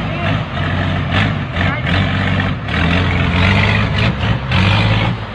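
Heavy dump truck engine running steadily at low revs under load as the loaded truck crawls over logs, with voices faintly in the background.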